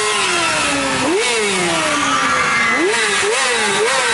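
Yamaha sport motorcycle engine revved in throttle blips: the pitch jumps up and sinks slowly back, once about a second in and then in quicker blips close together near the end.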